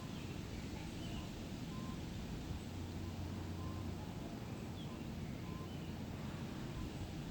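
Forest ambience: faint birds calling, with short notes repeating every second or two and a few high chirps, over a steady low rumble.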